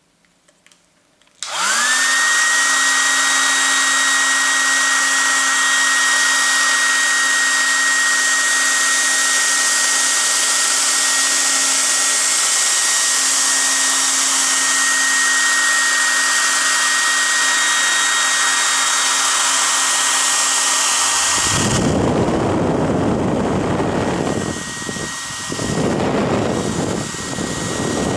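Hair dryer switched on about a second and a half in: its motor whine glides up to speed and it then runs steadily with a loud rush of air. About three-quarters of the way through, the airflow turns to an uneven, lower rush that rises and falls, while the motor whine carries on.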